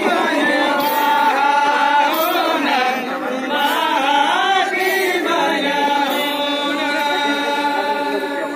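A group of women singing a Santali traditional song together, with long held notes that slide between pitches and no drum playing.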